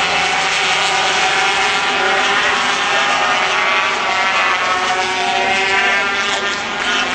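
Several two-stroke 250cc Grand Prix racing motorcycles wailing around the circuit at race speed. Their high, overlapping engine notes rise and fall as the riders change gear and pass.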